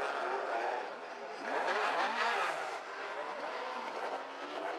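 Rally car engine revving hard, heard from inside the car, its pitch rising and falling as it goes up and down the revs, most clearly about two seconds in.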